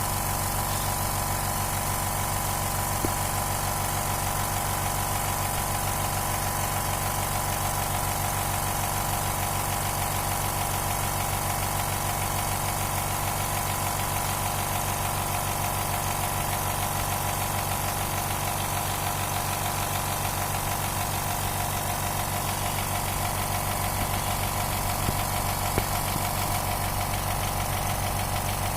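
Dental air compressor running steadily as it pumps air into its 30-litre tank, an even motor hum with a constant hiss and a couple of light clicks.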